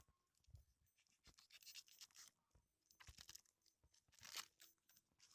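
Faint, irregular scratching and crunching of food being handled by hand, as raw chicken is mixed with egg for marinating.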